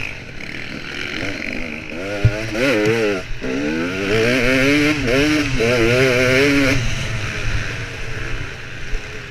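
Dirt bike engine heard from the bike itself, revving up in repeated surges with its pitch rising and dropping as the throttle opens and closes, then easing off near the end. There is a short knock a little over two seconds in.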